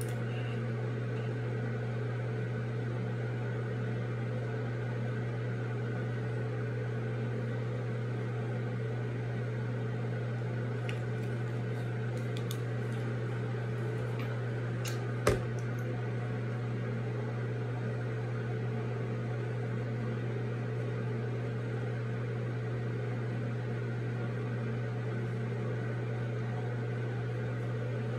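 Steady low mechanical hum of a running appliance, even and unchanging, with a single sharp knock about fifteen seconds in.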